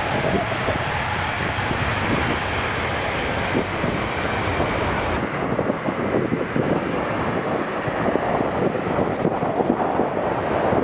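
Boeing 747 freighter's jet engines during the landing rollout, a steady dense rushing noise. About five seconds in, the sound cuts to a second 747 rolling on the ground with its engines running steadily.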